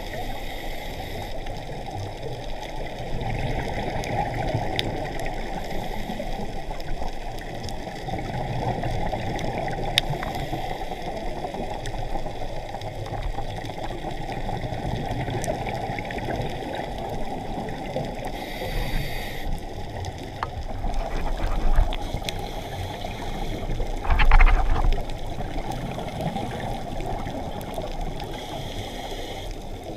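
Muffled, steady rush of water heard underwater through a camera housing, with a brief louder gush about three-quarters of the way through.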